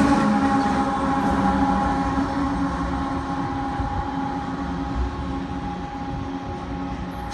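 Union Pacific GE diesel locomotives and an empty coal train running on the rails. The train gives a steady rumble with a few held tones, fading gradually as it moves away.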